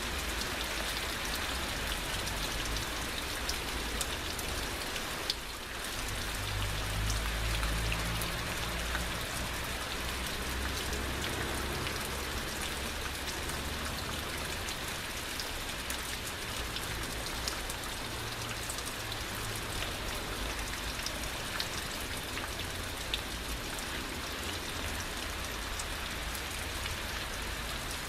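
Heavy rain falling steadily in a downpour, a dense even hiss with many single drop hits heard as small sharp ticks. The sound dips briefly about five seconds in.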